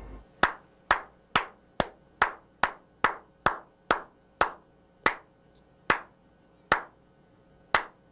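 One man clapping his hands slowly, about fourteen sharp single claps: a little over two a second at first, slowing to about one a second near the end.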